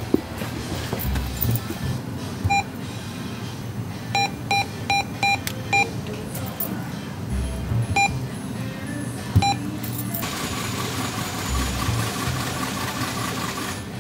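ATM keypad beeping as keys are pressed: about eight short electronic beeps, five of them in a quick run, then the cash dispenser whirring steadily for several seconds as it counts out bills.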